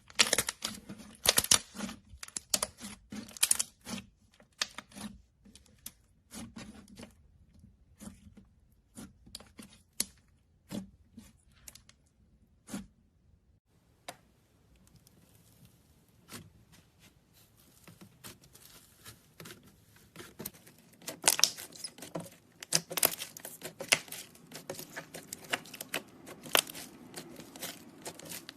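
Slime being squeezed, stretched and pressed by hand, giving a run of sharp popping and crackling clicks. The clicks thin out partway through, go quiet for several seconds, then return thick and fast near the end.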